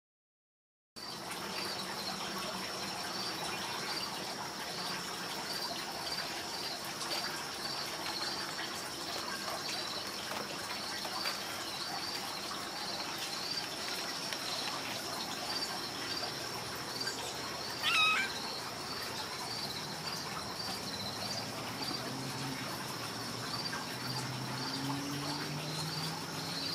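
Insects chirping steadily from about a second in: a continuous high whine with a regular pulse of short chirps, about two a second. About two thirds of the way in there is one short, louder call that falls in pitch.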